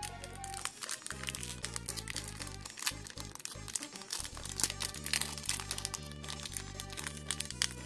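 Foil wrapper of a Yu-Gi-Oh! booster pack crinkling and crackling in rapid bursts as hands pull at it, trying to tear the tough pack open, over background music with a stepping bass line.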